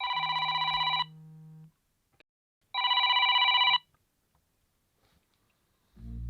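A telephone ringing twice, each ring about a second of fast-trilling tone. Music starts near the end.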